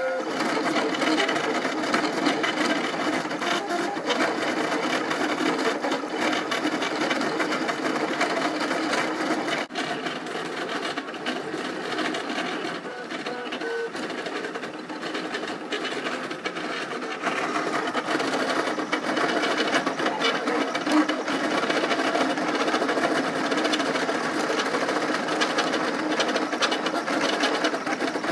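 3D printer running a print: its stepper motors whine in a cluster of tones that keep changing pitch as the print head moves back and forth over the layer.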